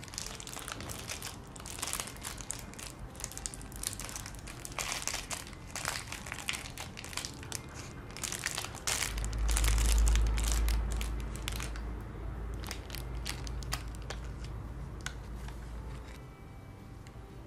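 Plastic candy wrapper crinkling and crackling as it is torn and pulled open by hand close to the microphone. About halfway through there is a low rumble, the loudest part.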